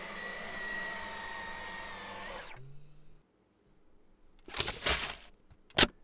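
Dyson cordless stick vacuum with its mini motorized tool running with a steady whine, then switched off about two and a half seconds in, the whine falling as the motor spins down. A short rushing rattle follows a couple of seconds later, then a sharp click near the end.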